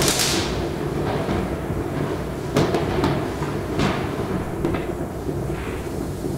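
New Year's fireworks and firecrackers going off at irregular intervals over a steady low rumble, with a sharp bang at the start, two more about two and a half and four seconds in, and smaller cracks after them.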